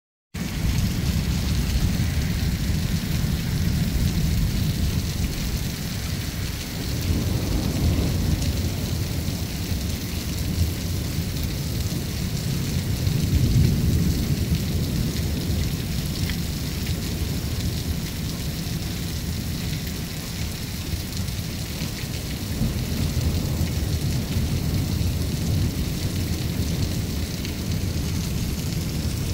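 Heavy rain pouring steadily over near-continuous low rolling thunder, the rumble swelling about a quarter of the way in and again near the middle.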